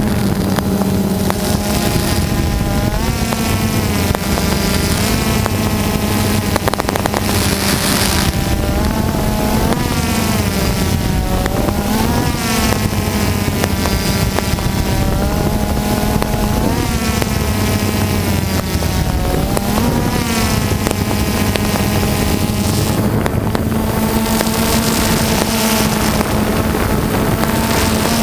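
Quadcopter drone's electric motors and propellers whirring close to the microphone, the pitch swooping up and down again and again as the motors change speed.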